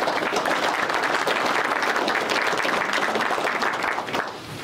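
Audience applauding, a steady patter of many hands clapping that dies away about four seconds in.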